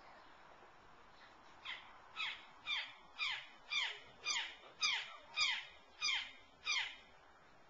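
Juvenile bald eagle calling: a run of about ten high notes, each sliding downward in pitch, at about two a second.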